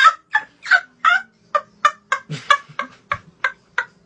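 A boy laughing hard in a fast string of short, high cackles, about three or four a second, the bursts growing shorter toward the end.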